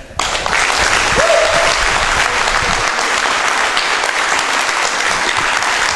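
Audience applauding, breaking out suddenly and continuing steadily.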